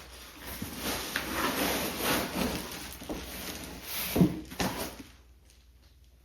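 Rustling and handling noises with scattered knocks, the loudest a sharp knock about four seconds in and a second shortly after; then it goes quiet.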